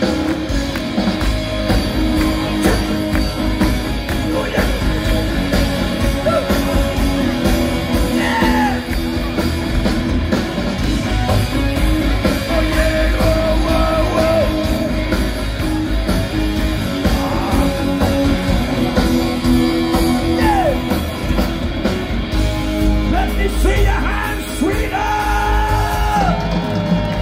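Live rock band playing a song over a large festival PA, with a male singer, heard from within the audience.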